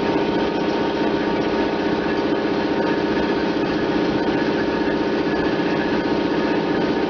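MetalMaster PT 330 metal-cutting band saw running at its higher blade speed and feeding through a workpiece: a steady machine drone with a fast, even flutter and a constant whine.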